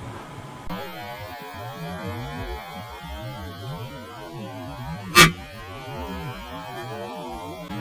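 Motorcycle helmet-camera audio slowed to quarter speed: a low, warbling rush of wind and engine noise. About five seconds in comes one sharp hit, the bird striking the front of the helmet visor.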